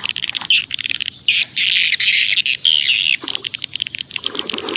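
Birds chirping, a dense run of rapid, short, high-pitched calls.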